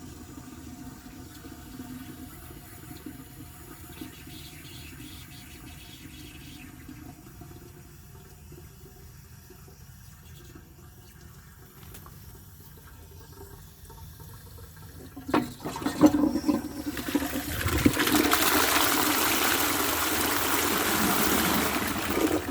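1952 Adamsez cast iron toilet cistern on test: water runs quietly for the first fifteen seconds or so, then sharp knocks and a loud rush of water as the cistern flushes, lasting about five seconds.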